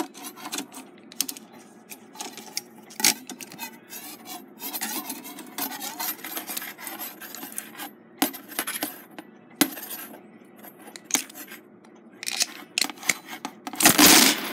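Steel clock mainspring being pried off its great wheel arbor with a screwdriver and winding key: scattered metal clicks and scrapes, then a loud metallic clatter near the end as the spring comes free.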